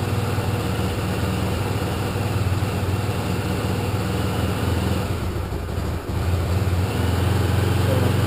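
Honda CBX250 Twister's single-cylinder engine running on choke just after a cold start. It dips briefly about six seconds in, then picks up and runs a little louder.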